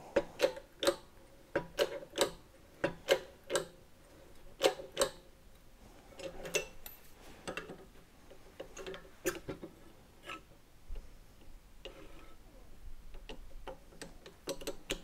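Hydraulic bottle jack in a shop press being pumped by hand with its handle bar, a series of sharp metallic clicks with each stroke, about two a second at first, then sparser and fainter, as the press bends a strip of scrap steel.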